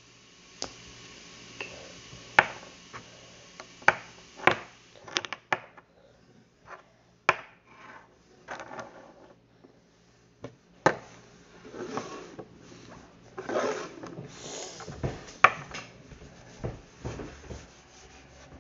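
Scattered clicks, knocks and light clatter of containers and utensils being handled on a table, with stretches of rubbing and scraping between them.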